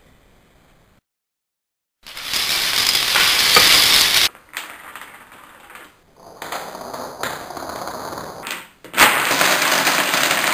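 A loud rushing whoosh of a fire-breather's flame, then black dominoes clattering as a chain topples. About nine seconds in comes a loud clatter as a tall domino tower collapses.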